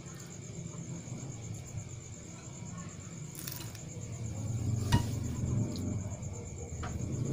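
Steady high-pitched trill over a low background rumble, with a sharp click about five seconds in and a fainter click near the end.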